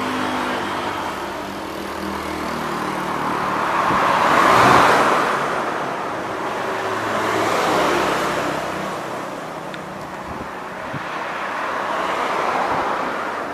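Road traffic: vehicles passing one after another on a busy road, three swelling pass-bys, the loudest about four and a half seconds in.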